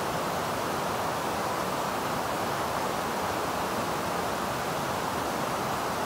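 River water rushing over a low weir and through rocky shallows: a steady, unbroken rush.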